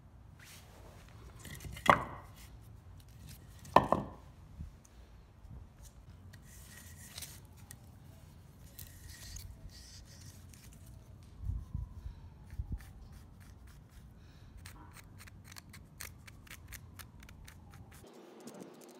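Split firewood pieces handled on a concrete floor: two sharp wooden knocks a couple of seconds apart, a few dull thumps midway, then a quick run of small clicks near the end.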